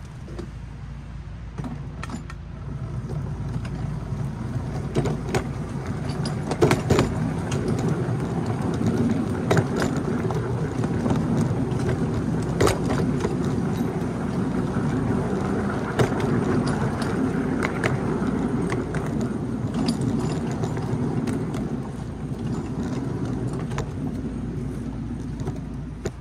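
A 7¼-inch-gauge ride-on miniature train running along the track, a steady rumble from the wheels and running gear with frequent clicks and knocks. It gets underway about two seconds in.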